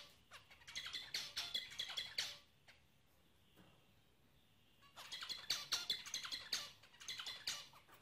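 Caged zebra finches chirping in quick runs of short calls, two bouts with a pause of a few seconds between them.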